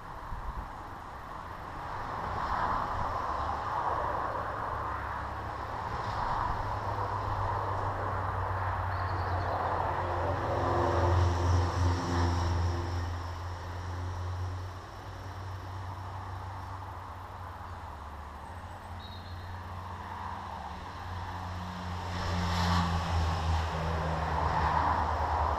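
An engine running steadily at a low pitch, growing louder about halfway through and again near the end.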